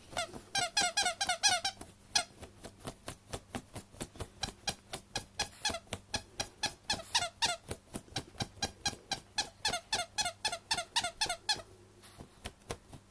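Squeaky dog toy squeaking in quick repeated chirps, about four to five a second, as a dog digs and paws at it through a sheet. The squeaking comes in runs and stops about twelve seconds in.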